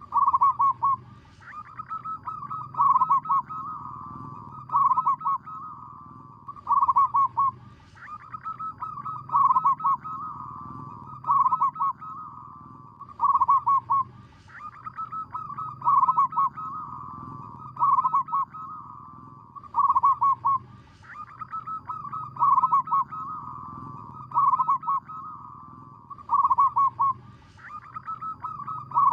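Zebra dove calling: a phrase of rapid, trilled cooing notes repeated about every two seconds.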